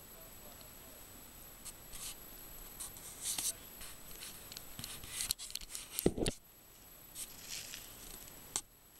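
Close scratching and rubbing of a hand on a handheld camera while it is swung about, in short scattered bursts, with one louder bump about six seconds in.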